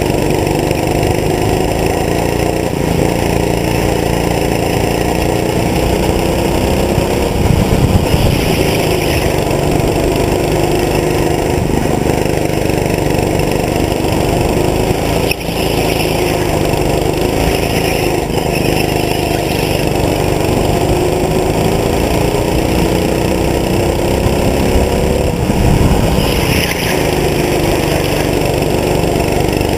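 Go-kart engine heard on board while lapping, running steadily with its pitch rising and falling again and again as the throttle is opened and eased through the corners.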